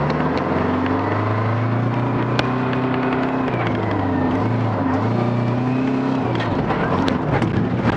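Old dump truck's diesel engine heard from inside the cab, pulling away through the gears. Engine speed climbs, drops at a gear change about three and a half seconds in, climbs again, and drops at another shift near the end.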